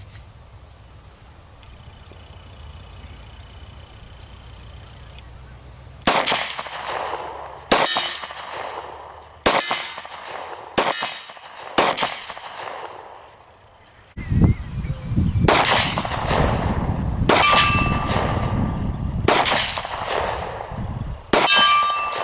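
Glock 30 pistol firing 10mm rounds through a .45-to-10mm conversion barrel: nine shots in two strings, five and then four, spaced about one and a half to two seconds apart. Several of the later shots are followed by a short metallic ring.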